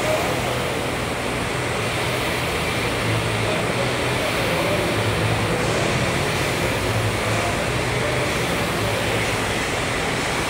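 Concept2 rowing machine's air flywheel whirring steadily as the rower pulls hard.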